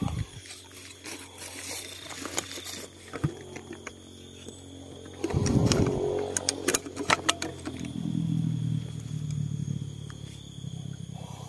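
Close handling noises of hands working fish bait and gear on grassy ground: scattered clicks and rustles, with a louder rustling burst and a quick run of sharp clicks about halfway through. Crickets chirp steadily behind it, and a low hum comes in during the second half.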